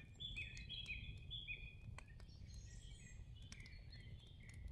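Faint birdsong: a small bird repeats short, high chirps, several quick falling notes in the first two seconds and more scattered ones after. A few faint sharp clicks are mixed in.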